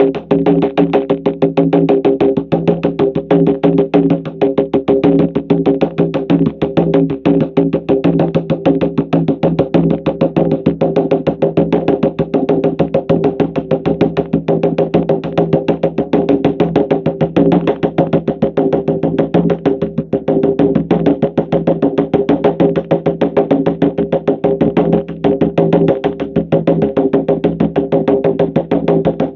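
Rapid, steady shamanic drum beat for a theta-state journey, struck evenly over a steady humming drone.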